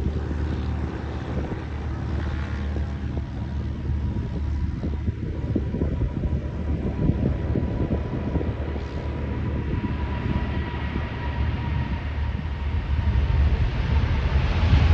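Distant jet engines of a cargo airliner rumbling as it accelerates along the runway, with a faint steady whine over the rumble. The sound builds over the last few seconds as the jet comes nearer, with wind on the microphone.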